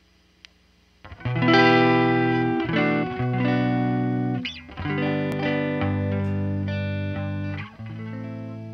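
Squier Stratocaster electric guitar strumming ringing chords through a Peavey BackStage Plus amp, starting about a second in after a faint amp hum. The chords change several times and each rings out slowly.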